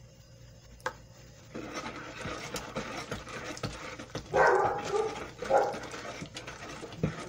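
A dog barking twice, about four and five and a half seconds in, over background clatter and noise that starts about a second and a half in.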